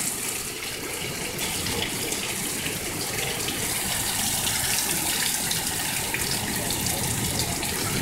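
Heavy rain pouring down in a steady, dense hiss, almost like a monsoon.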